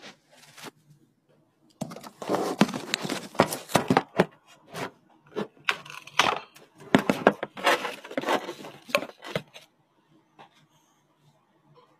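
Handling noise from a smartphone being carried and set down: rustling and scraping against the microphone with a run of knocks. It stops abruptly at about nine and a half seconds.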